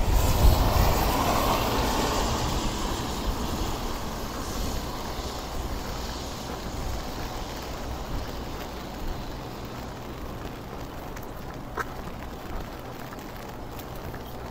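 A motor vehicle passing on a wet street: engine rumble and tyre hiss, loudest at the start and fading steadily over about ten seconds as it moves away.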